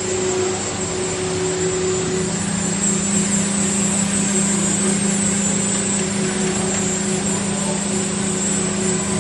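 CMS Profile vertical CNC glass-working machine running: a steady mechanical hum with a constant high whine above it.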